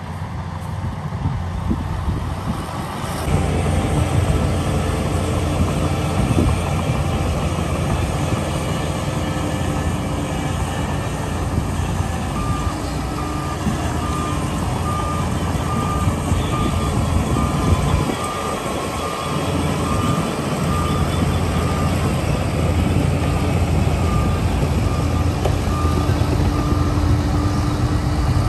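Heavy diesel engines of dump trucks and bulldozers running in a steady low drone. About halfway through, a reversing beeper starts, beeping about once a second.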